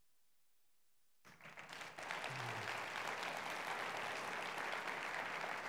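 Audience applauding: the clapping starts about a second in, builds quickly and then holds steady.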